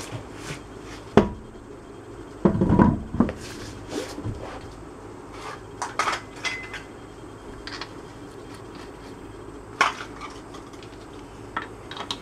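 Car alloy wheel being hung back on the hub studs: a knock, then a louder scraping clunk as the wheel slides on, followed by scattered light metallic clinks of lug nuts being started on the studs by hand.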